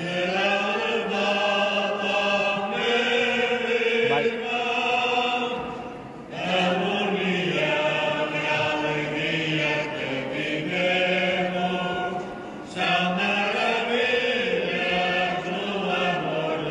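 Voices singing a hymn together, the closing hymn of a Mass, in sustained phrases of a few seconds with short breaks between them, about 6 and 12 seconds in.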